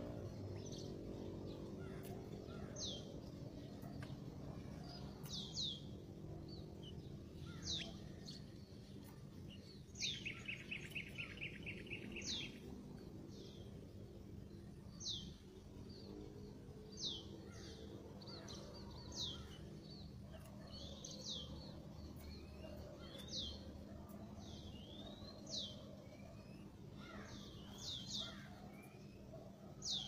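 Oriental magpie-robins (kacer) calling: short, sharp downward-sliding whistles about every two seconds, with a quick run of rapid trilled notes around ten seconds in. A steady low engine hum runs underneath, and a passing vehicle fades out at the start.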